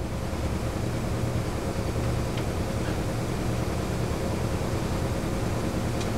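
Steady low workshop hum with a faint steady tone, and a few light clicks of parts being handled on the bench, one pair about two and a half seconds in and one near the end.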